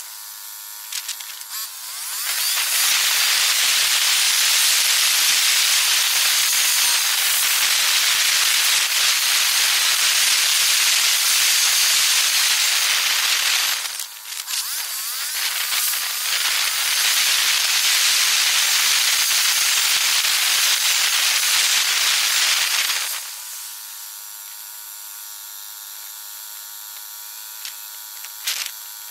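Loud, steady rushing hiss of wind and road noise on the microphone of a moving vehicle. It drops twice to a much quieter steady hum with a few faint steady tones: near the start, and for the last six seconds or so while stopped in traffic at a red light.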